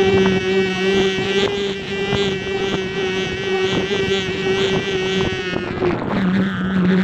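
Wind buffeting the microphone of a phone carried aloft on a kite, under a steady droning hum. Near the end the hum drops to a lower pitch.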